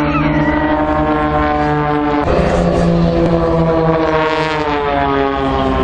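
Jet aircraft flying past with a loud engine whine over a steady low rumble. The pitch drops sharply about two seconds in, then keeps sliding down as the jets pass.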